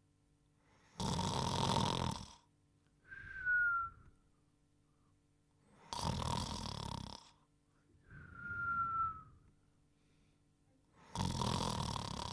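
Cartoon snoring: three rasping snores about five seconds apart, each followed by a short whistle that falls slightly in pitch, in a steady sleeping rhythm.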